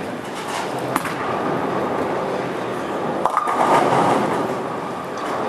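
Bowling ball rolling down a wooden lane and crashing into the pins about three seconds in, with the rolling and pin noise of other lanes in a busy bowling centre behind it.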